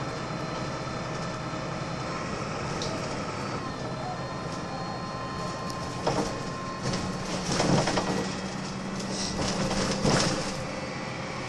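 Interior sound aboard a Volvo B6BLE single-deck bus under way: a steady engine and drivetrain hum with a faint whine. In the second half there are a few louder rattles and knocks, and the engine note steadies a little higher about seven seconds in.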